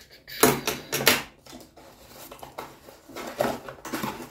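Scissors cutting into a cardboard box end and the cardboard flap being worked open by hand, heard as about four short scratchy, rustling bursts.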